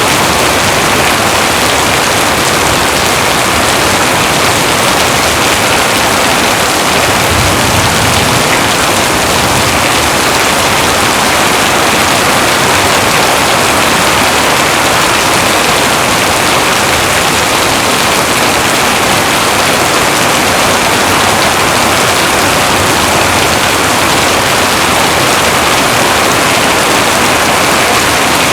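Heavy rain falling steadily, a dense, even hiss of rain with no let-up. A faint low swell comes about eight seconds in.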